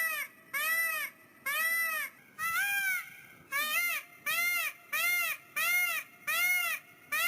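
Peacock calling a rapid series of loud, repeated calls, about one and a half a second, each call rising and then falling in pitch. About two and a half seconds in, one call glides upward instead.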